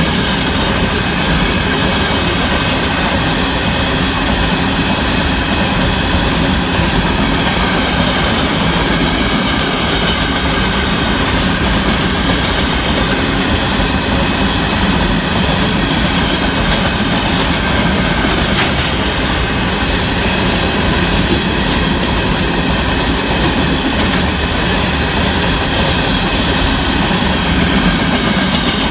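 Union Pacific freight train of hopper cars rolling past: a steady, loud rumble of wheels on the rails, with a thin high whine running through it.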